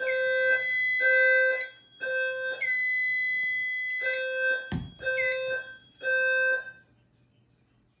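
Notifier NFS2-3030 fire alarm system sounding its evacuation tone in the temporal-3 pattern: three low tones, a pause, then three more. A second, higher tone sounds in longer pulses out of step with it, as the alarm devices are not synchronized because of a bad sync module. A single knock comes about midway.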